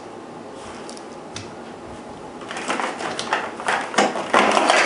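Hard plastic packaging and parts being handled: irregular clicks and rustles that start about halfway through and get louder near the end.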